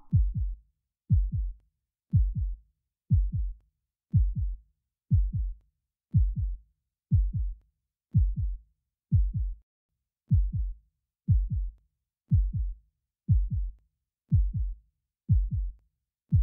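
Heartbeat sound effect: a slow, steady lub-dub, about one double beat a second. Each beat is a low thud that drops in pitch, with silence between beats.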